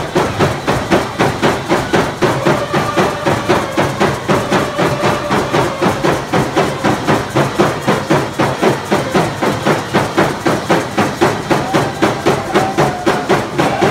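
Stick game (slahal) song: a steady pounding beat of about three strokes a second, with voices singing long held notes over it, as the hiding team plays while its players conceal the bones.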